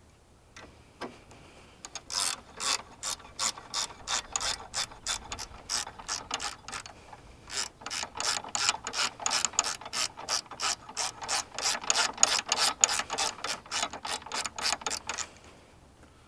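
Socket ratchet wrench clicking rapidly as it is worked back and forth to undo the 10 mm bolt holding the car battery. The clicking starts about two seconds in, breaks briefly around the middle, and stops shortly before the end.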